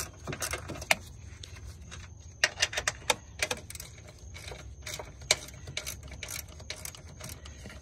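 Sharp, irregular clicks in quick clusters, about two and a half and five seconds in, from a hand tool working the screw that holds a plastic coolant reservoir in place.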